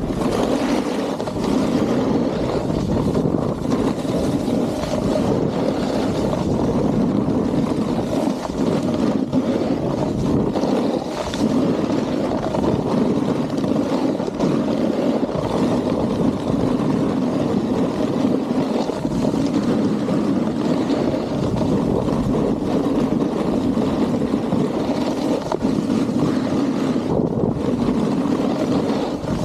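Snowboard sliding and carving on groomed snow, a steady rush and scrape from the board's base and edges, mixed with wind on the microphone.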